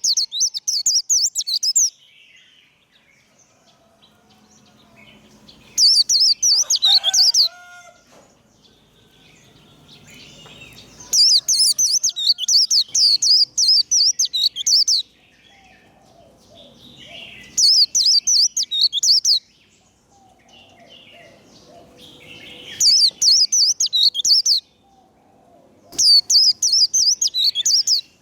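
White-eye (vành khuyên) singing its rapid, high twittering 'líu' song in six bursts of one and a half to four seconds each, with faint softer calls in the pauses between them. This is the fast competitive song that keepers play to spur caged white-eyes into singing.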